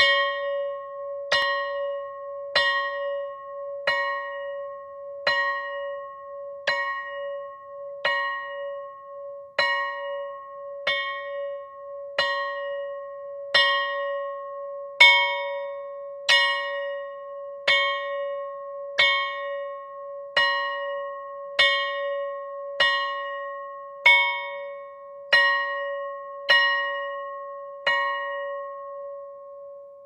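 School bell rung in slow, even strokes, about one every 1.3 seconds, a steady ringing tone carrying on between strokes. The strokes stop near the end and the ring fades.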